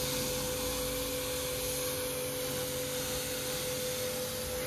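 Portable electric pressure washer running steadily: a constant motor hum under an even hiss of water spray.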